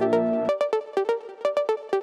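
Electronic background music: a sustained chord gives way about half a second in to a quick, repeating pattern of short, clicky synth notes.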